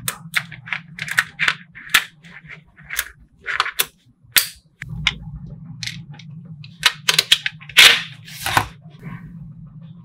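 Small neodymium magnetic balls clicking and snapping against each other as they are pressed into layers, in quick irregular clicks. There is a brief louder scraping rattle about eight seconds in.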